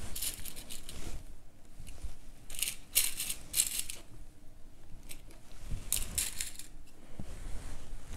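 Hands rustling and sliding sheer fabric pieces across a cutting mat, with a few light metallic clinks from the metal washers used as pattern weights. The sounds come as several short, separate bursts.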